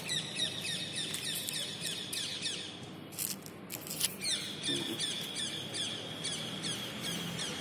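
Rapid high-pitched chirping, short falling chirps about four or five a second, over a steady high thin tone.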